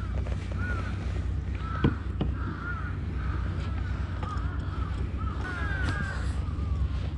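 Birds calling repeatedly, a run of short arching cries, over a steady low rumble, with two sharp clicks about two seconds in.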